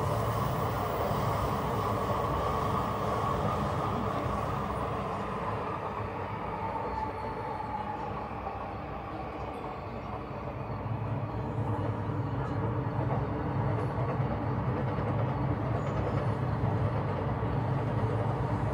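Electric commuter trains running on the tracks below, a steady rumble that eases slightly midway and builds again as another train comes through.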